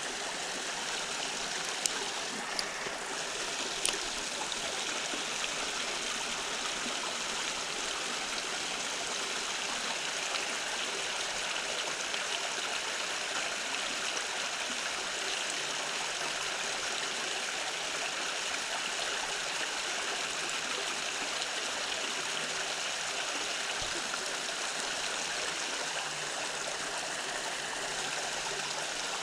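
Creek water running steadily over rocks, an even rushing and trickling. A couple of brief clicks sound a few seconds in.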